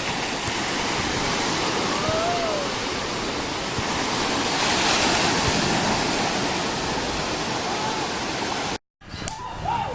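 Sea surf washing onto the beach: a steady rushing noise that swells about halfway through, then cuts off abruptly near the end.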